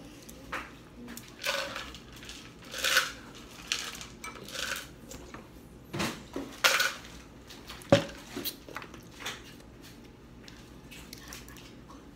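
Shrimp and snow crab shells being peeled and cracked by hand close to the microphone, with seafood being dipped in sauce: an irregular string of sharp crackles and clicks.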